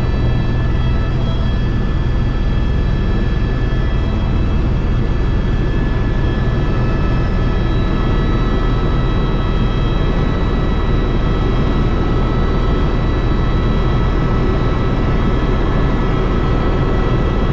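Tour helicopter in flight: a loud, steady engine-and-rotor drone with several constant high whining tones from the turbine.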